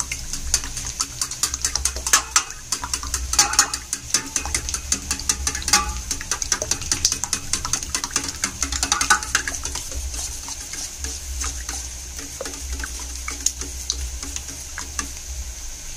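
A steel spoon beating raw eggs in a stainless steel bowl: fast, repeated clinks of the spoon against the bowl with the sloshing of the liquid. The clinks are dense for the first ten seconds or so, then thin out as the eggs turn smooth.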